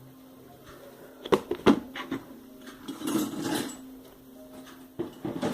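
Hard clacks and a clattering rattle of a plastic spinning-top toy being handled: two sharp clacks about a second in, a longer rattle in the middle, and more clacks near the end, over a faint steady hum.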